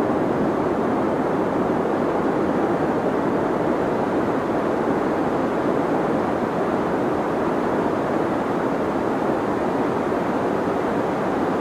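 Steady deep white noise for sleep: an even, unchanging hiss weighted toward the low and middle range, with little treble.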